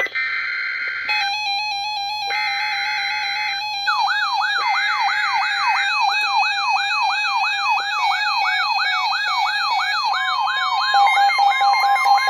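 Three roughly one-second bursts of an Emergency Alert System SAME digital header over steady electronic tones. From about four seconds in, a siren sweeps upward over and over, about two sweeps a second. Near the end the steady NOAA Weather Radio warning alarm tone starts.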